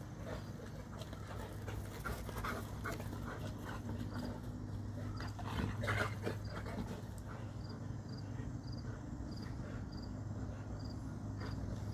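Dogs panting hard while a Boerboel and a Serbian Defense Dog play-wrestle, with short irregular scuffling sounds of paws and bodies, loudest about six seconds in.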